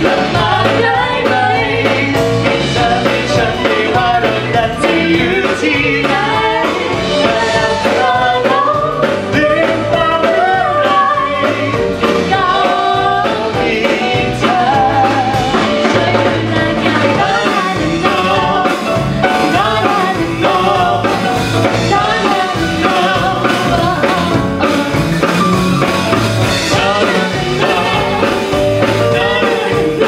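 A man and a woman singing a pop duet with a live band: drum kit, electric bass guitar and keyboard.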